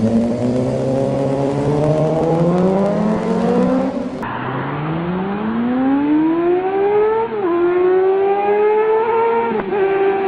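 Motorcycle engines under hard acceleration, the pitch climbing. About four seconds in it cuts to another bike revving up through the gears, with a quick dip in pitch at each shift, about seven seconds in and again near the end.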